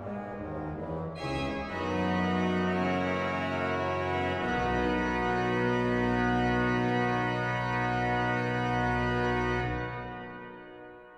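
Historic 1727 Müller pipe organ playing sustained full chords. A brighter, fuller sound comes in about a second in, then a deep chord is held for several seconds and released near the end, the church's reverberation dying away.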